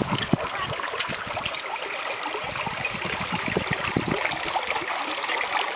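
Water running and trickling through a concrete irrigation canal, with scattered light clicks and knocks as a ring spanner works a bolt on a small steel bracket on the canal wall.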